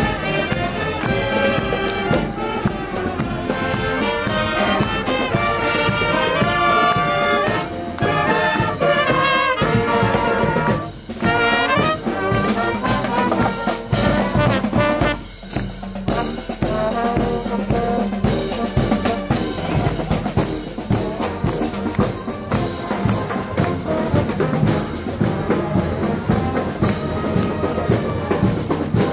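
A youth marching wind band playing in the street: trombones, saxophones, sousaphone and bass drum together. The music breaks off briefly twice, about a third and about halfway through.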